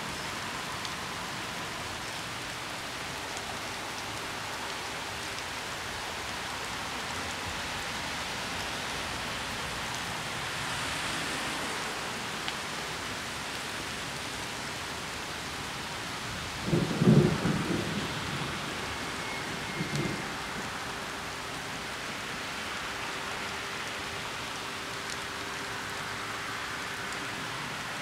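Steady rain hiss, with a loud rumble of thunder a little past the middle and a shorter, weaker one a few seconds later.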